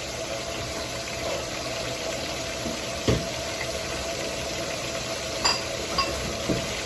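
Food frying in hot oil, a steady sizzle, with a few light knocks of kitchen utensils about three seconds in and near the end.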